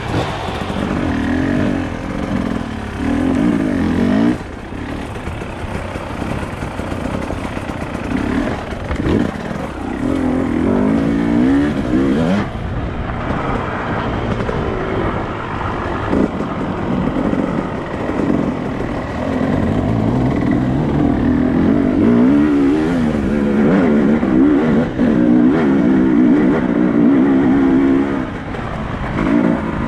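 Off-road motorcycle engine running and revving up and down over and over, its pitch rising and falling with the throttle.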